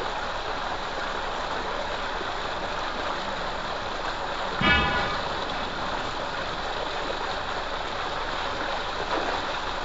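Water gushing steadily from a pipe outlet and splashing into a filled concrete water tank. About halfway through there is a brief louder sound with a short pitched tone.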